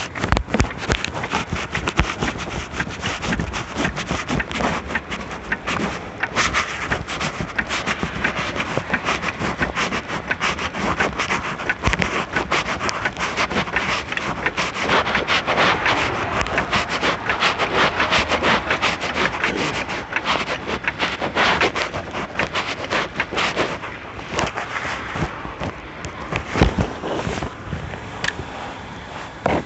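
Metal hand tools clicking and scraping on a car wheel during a roadside tire change, a dense, irregular run of short clicks and rubs, easing somewhat near the end.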